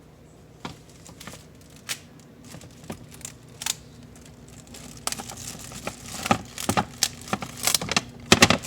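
Crinkling and rustling of wrapping being handled: irregular crackles and taps, sparse at first, then busier and louder over the last few seconds.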